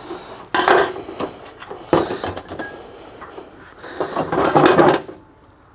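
Parts and tools being handled while mounting a skid plate and its hardware: a few sharp knocks and rubbing noises, with the longest and loudest stretch of rubbing near the end.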